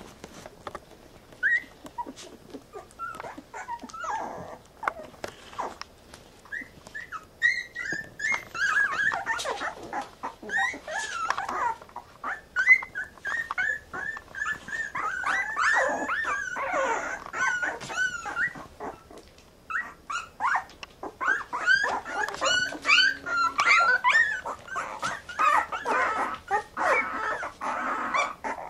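Newborn Brittany puppies squeaking and whimpering: many short, high squeaks in quick runs. They are sparse at first and come almost without a break from about seven seconds in.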